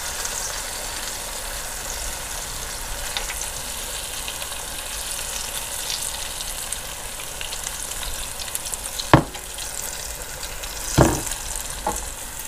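Breaded bacon slices deep-frying in hot oil in a Hamilton Beach electric deep fryer: a steady sizzling hiss. A sharp knock comes about nine seconds in, and a softer one about two seconds later.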